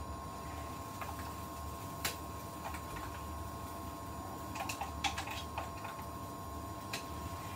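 Irregular light clicks and clinks of kitchen utensils against a frying pan and crockery, over a steady low hum.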